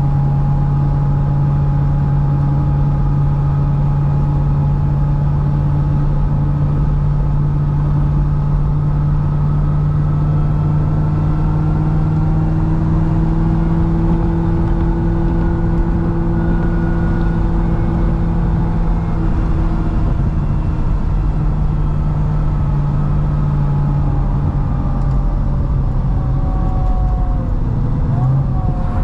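Supercharged V8 of a C6 Corvette ZR1 running steadily at light throttle, cruising, with road noise underneath. The engine drone holds a nearly even pitch, rising slightly and falling back midway, with a brief wobble in pitch near the end.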